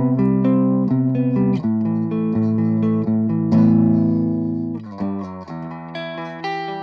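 Electric guitar played through a Cort MX15 15-watt practice combo amplifier: a run of picked notes, then a chord about three and a half seconds in left to ring out and fade, followed by quieter picked notes.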